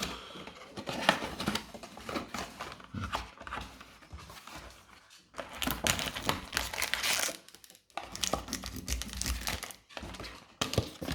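Plastic and foil packaging crinkling and rustling, with some tearing, as a Pokémon card booster box is unpacked and its booster packs handled. It comes in irregular stretches, loudest in a burst about halfway through.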